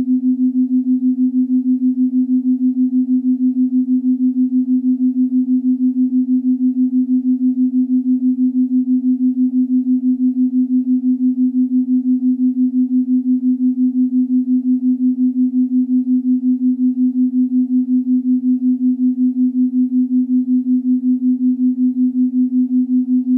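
Electronic meditation drone: one low, steady tone that pulses evenly in loudness about four or five times a second.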